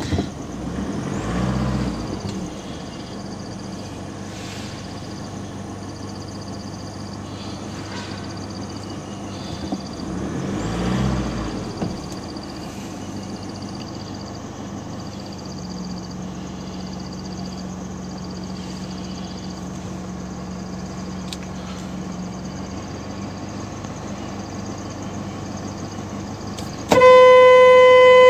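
A vehicle engine runs steadily, with two brief swells of low rumble in the first half. Near the end a car horn sounds, loud and steady.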